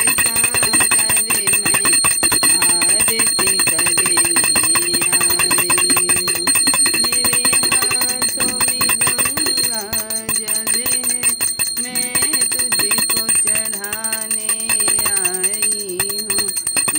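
A puja hand bell rung rapidly and continuously, its steady high ring over a woman singing a devotional aarti melody in long held notes.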